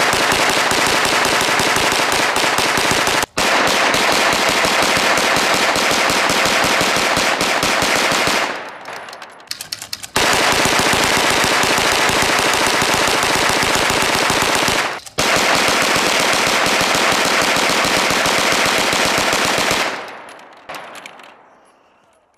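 Tippmann Armory hand-cranked 9mm Gatling gun firing rapid, continuous strings of shots, as fast as the crank is turned. It fires in three long bursts with brief breaks between them, and the firing dies away near the end.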